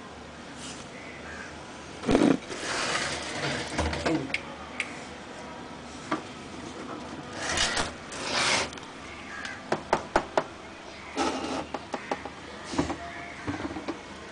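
Handling noise of a phone camera being picked up and moved: scrapes, knocks and a run of quick sharp clicks, with one loud thump about two seconds in.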